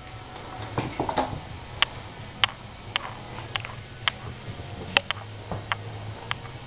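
Kittens' claws and paws clicking and pattering on bare wooden floorboards as they scuffle and scamper, giving irregular sharp ticks with a brief rustle of scuffling about a second in.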